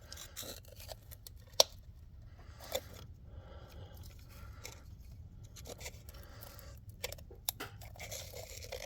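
Hand work on plastic engine parts: scraping and rustling with a few sharp clicks, the loudest about a second and a half in, as knock sensor covers are pried out of the engine valley.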